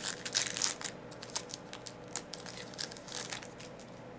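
Foil trading-card pack wrappers crinkling and tearing as cards are handled: a run of quick crackles and rustles, busiest in the first second and again near the end.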